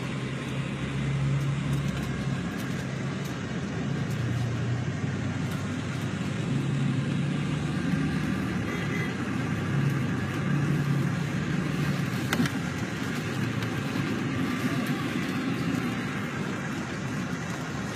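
Intercity coach heard from inside the passenger cabin while moving: steady engine hum and road noise, the low drone swelling and easing a little.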